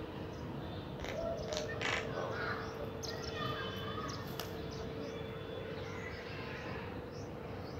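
House crows cawing, several calls in the first half, over a steady hum and a low background rumble.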